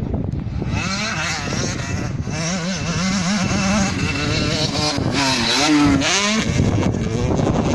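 KTM 65 two-stroke motocross bike engine revving up and down as the bike approaches and jumps, loudest and highest-pitched about five to six seconds in, then dropping away. Wind rumbles on the microphone throughout.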